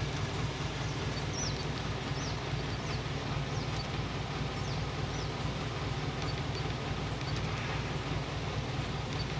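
Truck engine idling steadily, with short bird chirps now and then over it.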